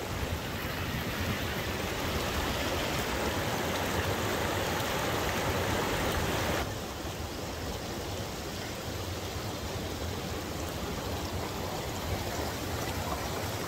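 Mountain creek running steadily as a continuous rush of water. About seven seconds in it drops abruptly to a quieter, duller rush.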